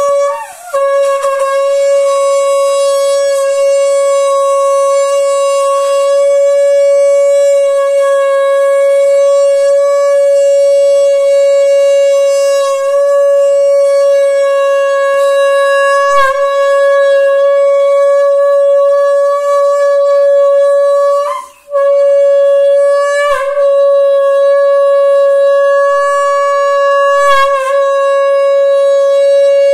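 Conch shell blown in one long, loud, steady note at a level pitch with a rich buzzy overtone series. The note wavers and dips right at the start, and about 21 seconds in it cuts out for a moment and comes straight back.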